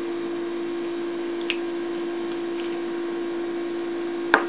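A steady low electrical hum, with a light click about a third of the way in and two sharp knocks close together near the end.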